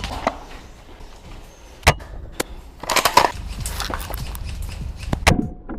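A handful of sharp clicks and knocks at irregular intervals, the loudest about two seconds in and again near the end, over a low rumble.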